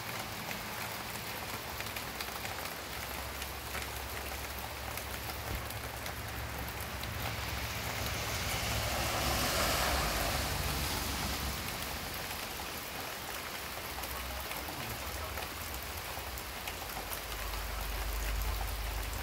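Steady outdoor background hiss with a low rumble underneath; the hiss swells and fades over a few seconds about halfway through.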